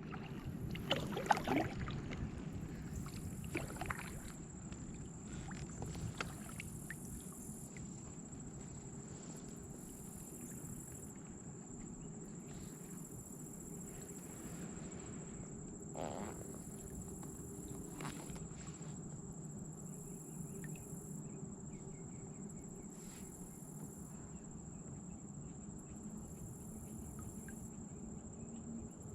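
Kayak paddling: steady water noise with paddle strokes and a few sharp knocks, most of them in the first few seconds. Insects call in evenly repeating high pulses over a steady high whine.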